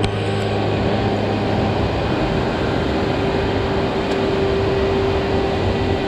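Steady roar of High Falls, a large waterfall, its water pouring down over the rocks.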